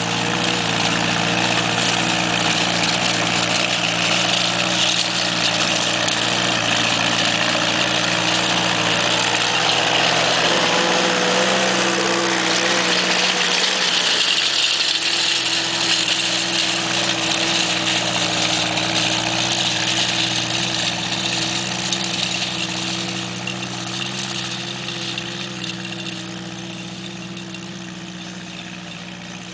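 1952 Case VAC tractor's four-cylinder engine running at a steady speed under load, pulling a spring-tooth digger through loose dirt. It grows louder as the tractor passes close about halfway through, then fades as it drives away.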